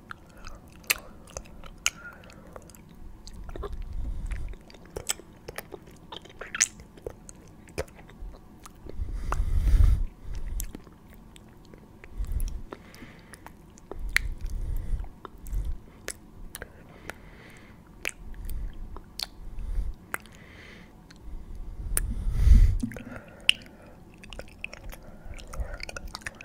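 Close-miked ASMR mouth sounds: wet mouth clicks and lip smacks, with several muffled low swells, the loudest about ten seconds in and near the end.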